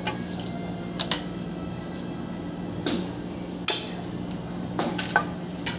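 Scattered sharp clicks and knocks, about ten in a few seconds, of tools and metal parts being handled while an AC outdoor fan motor is taken apart, over a steady low hum.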